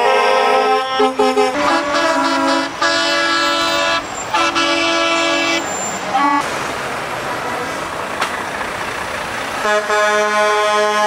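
Truck air horns sounding in long blasts of several notes at once, the chord changing as different trucks pass. For a few seconds in the middle the horns stop and a heavy truck is heard driving by. The horns start again near the end.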